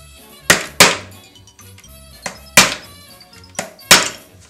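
Hammer blows on metal, driving the old sheared key out of the electric trimmer's ratchet: six sharp ringing strikes in three pairs, about a second and a half apart, each pair a lighter tap then a full blow.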